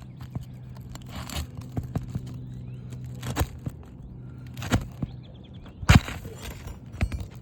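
Short scrapes and sharp clicks of hand tools working at roofing shingles to free a hidden nail, about five strokes with the loudest about six seconds in, over a steady low hum.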